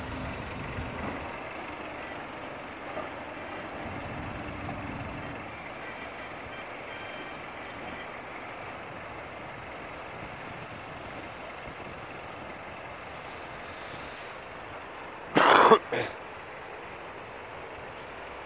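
Off-road vehicle engine running at a distance under a steady background noise. A short, loud burst of noise comes about fifteen seconds in.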